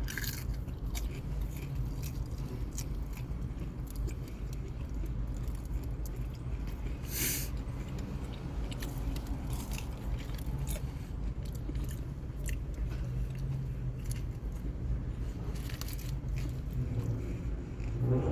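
A person biting and chewing fried mozzarella sticks, with small wet clicks of the mouth, over a steady low hum. A short burst of noise comes about seven seconds in.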